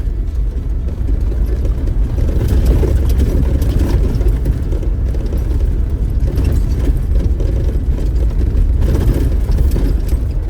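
Off-road vehicle driving along a dirt trail, heard from inside: a steady low rumble of engine and tyres, with faint scattered knocks and rattles.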